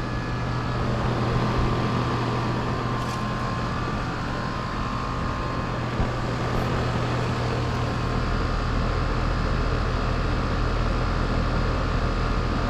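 Mainline (Rheem) central air conditioner condensing units running: a steady compressor hum under the rush of the condenser fans. A deeper low hum joins about two-thirds of the way through.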